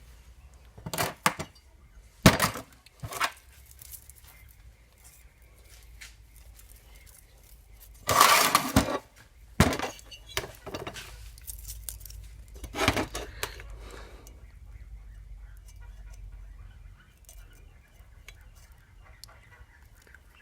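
Scattered metallic clinks and knocks of tools and small engine parts being handled, with a longer rattle about eight seconds in.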